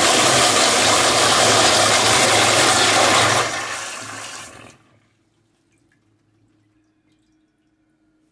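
Wall-hung flushometer toilet flushing: a loud rush of water that eases off about three and a half seconds in, then fades and cuts off shortly before five seconds in.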